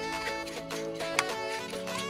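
Background instrumental music, a melody of held notes, with one sharp click about a second in.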